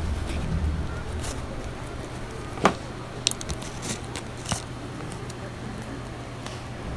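Quiet handling sounds of hand-sewing a needle and thread through a plastic snapback strap: a few small sharp clicks and rustles, the loudest a little under three seconds in, over a low steady hum.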